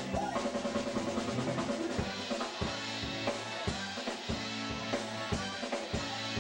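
Live band music with a Mapex drum kit keeping a steady beat on kick and snare under sustained instrumental backing.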